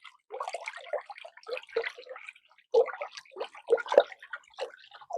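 Water sloshed and splashed in a bucket in irregular, uneven splashes: a foley imitation of waves lapping.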